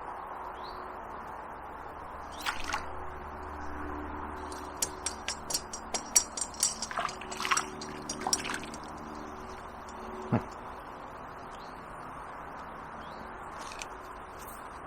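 Steady rush of flowing river water, with a quick run of light clicks and ticks about halfway through and a few single clicks before and after.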